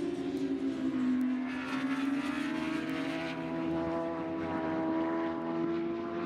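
Racing superbike engine at high revs. Its pitch dips slightly about a second in, then climbs slowly and steadily as the bike drives out of the corner.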